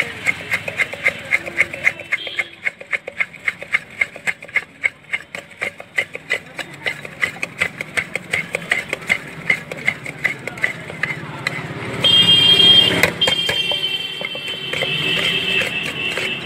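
Spoon clattering fast and rhythmically against a steel jhal muri mixing tin as puffed rice and spices are stirred, about three to four clinks a second. A loud, sustained pitched sound joins it about twelve seconds in.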